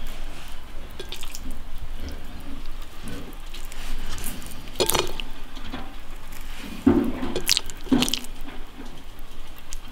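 Raw marinated lamb chunks being picked up by hand and pushed onto a bamboo skewer, a soft, wet handling sound. A few sharp clicks come about halfway through and near the end.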